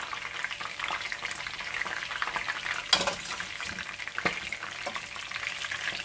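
Fish pieces deep-frying in hot oil: a steady crackling sizzle made of many fine pops, with two louder clicks about three and four seconds in.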